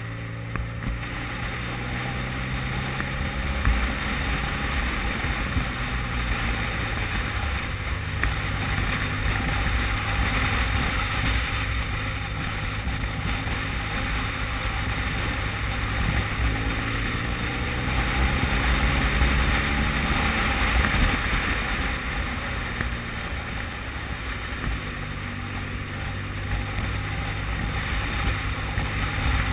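Adventure-touring motorcycle engine running at road speed, its note falling and rising a few times through the bends, with wind noise on the microphone.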